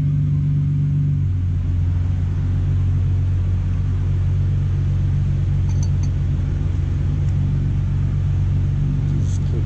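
BMW E46 330i's straight-six idling steadily, a low even drone whose tone shifts slightly about a second in.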